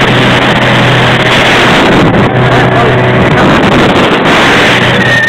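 Motorboat engine running steadily under way, a loud, constant drone mixed with rushing wind on the microphone and water noise.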